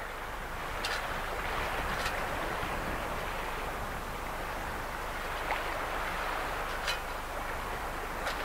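Steady rush of water and wind on open sea while sailing, with a few brief splashes of waves.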